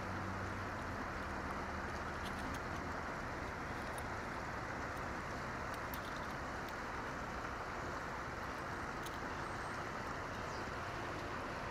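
Steady rushing of a shallow river flowing over rocks, an even wash of sound that does not change.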